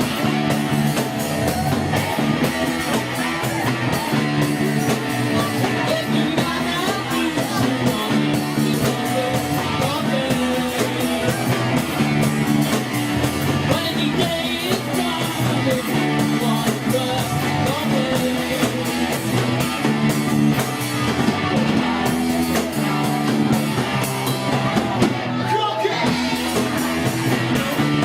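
Live rock band playing, with electric guitar and a singing voice over a steady beat.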